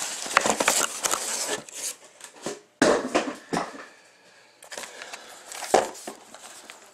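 Cardboard shipping case being slid and lifted off a stack of shrink-wrapped trading-card boxes: scraping and rustling cardboard, then the boxes being handled and knocked against the table, the loudest knock about three seconds in and another near the end.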